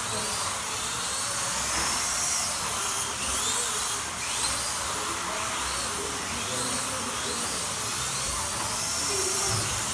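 Slot cars' small electric motors whining as they race round the track, with a rising whine that comes again about every second over a steady hiss.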